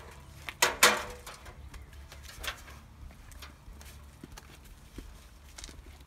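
Aluminium stepladder clattering as it is lifted and handled, with two loud metallic clanks about a second in. Lighter knocks and footsteps on a concrete walk follow as it is carried.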